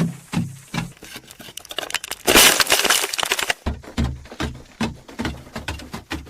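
Repeated knocks at an even pace of about three a second, broken about two seconds in by a loud burst of crackling, crunching noise lasting about a second, after which the knocking resumes.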